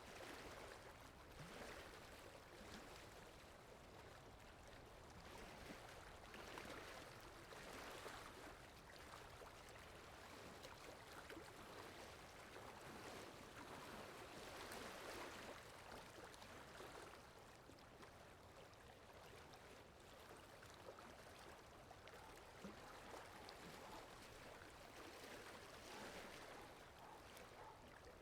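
Steady rain falling, a soft even hiss that swells and eases every few seconds, with fine drop ticks through it.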